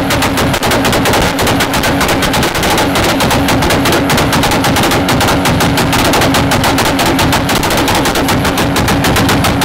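Toyota Supra held on its two-step launch limiter, the engine pinned at the rev limit with a steady droning note while the exhaust fires a rapid, unbroken string of loud bangs, many a second. The bangs come from the limiter cutting the ignition, which sends unburnt fuel to ignite in the exhaust and shoot flame.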